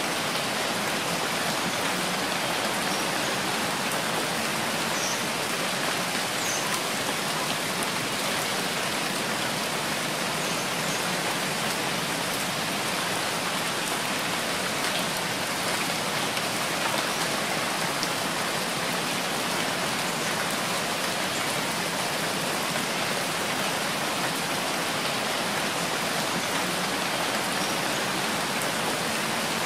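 Steady rain, an even hiss of falling drops that does not let up.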